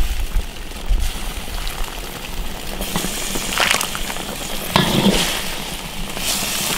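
Chicken soup with noodle dumplings and greens boiling in a metal pot, a steady bubbling hiss; about halfway through a ladle stirs it, with a couple of short scrapes against the pot.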